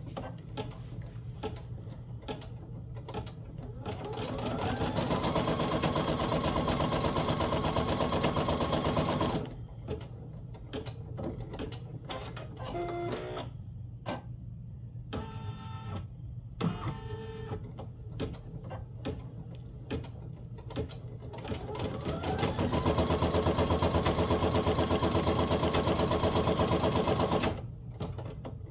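Home embroidery machine stitching out a design. Its motor winds up with a rising whine and runs at a fast, even stitch for about five seconds, then stops. After a stretch of short whirs and clicks while the hoop repositions, it winds up again and stitches for about five seconds more before stopping near the end.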